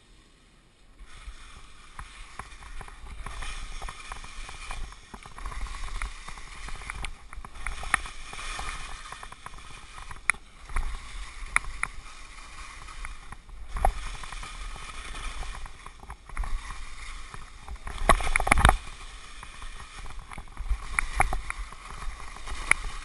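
Skis hissing and scraping over snow during a downhill run, with wind buffeting the camera microphone. The sliding starts about a second in and comes in surges, with scattered clicks and a louder rush about three-quarters of the way through.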